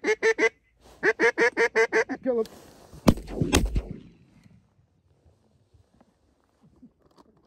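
Rapid runs of loud, evenly spaced quacks from a duck call, then two shotgun shots about half a second apart, about three seconds in.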